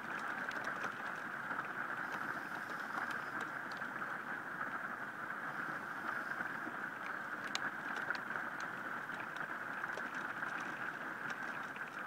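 Heavy rain falling steadily in a storm, a constant hiss with scattered sharp ticks of drops striking close by.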